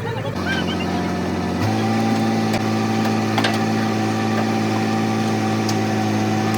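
An engine running steadily at a constant speed, its note stepping up abruptly about a second and a half in, with a few faint clicks over it.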